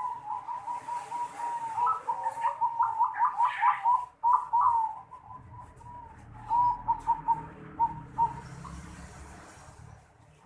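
Zebra dove (perkutut) cooing its unusual 'noklak'-style song: a string of notes that quickens into a fast run about two seconds in, breaks off, then a few short notes follow.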